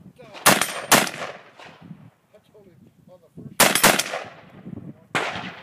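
Rifle fired five times: two shots about half a second apart, a pause, another quick pair, then a single shot near the end, each crack followed by a short echo.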